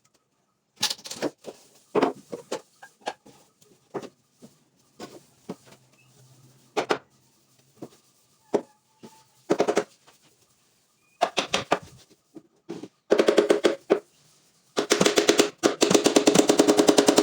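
Scattered sharp knocks and clicks, then bursts of rapid, evenly spaced rattling impacts that grow longer toward the end, like a power tool hammering in quick succession.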